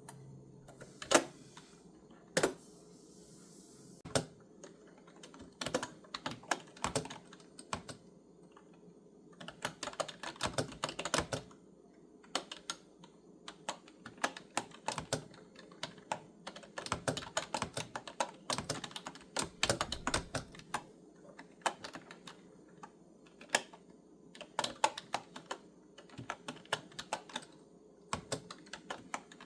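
Clicky computer keyboard being typed on: a few single, separate key presses at first, then runs of rapid keystrokes broken by short pauses.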